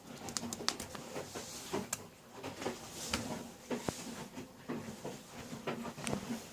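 Miele W941 front-loading washing machine running, with irregular clicks and knocks over a low, uneven hum.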